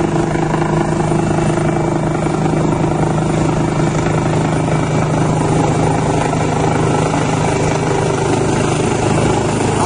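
Helicopter running loud and steady up close: a rapid low rotor beat under a constant engine hum.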